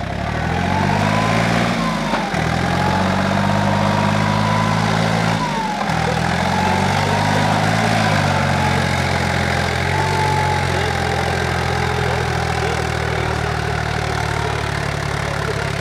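Small compact tractor's engine running hard under load as the tractor churns through a deep mud pit. The engine note dips briefly twice and drops in pitch about eight seconds in, then holds steady, with a thin whine rising and falling above it.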